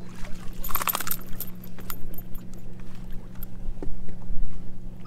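A hooked largemouth bass is landed, with a brief burst of splashing and rattling about a second in, then a few light clicks. Under it are a steady low hum and wind buffeting the microphone.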